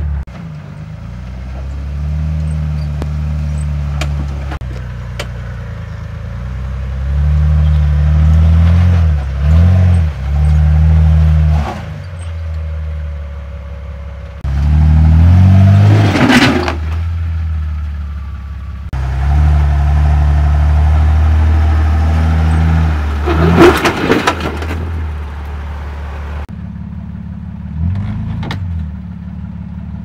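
Off-road 4x4 engine running low and revving up and down in steps as it crawls a rocky trail. There is a loud clattering burst about halfway through and another a few seconds later.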